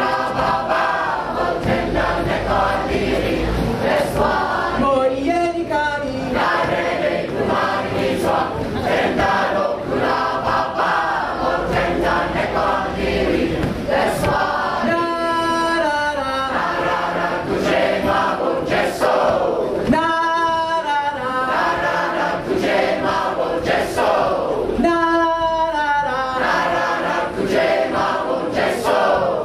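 Mixed choir of men and women singing together.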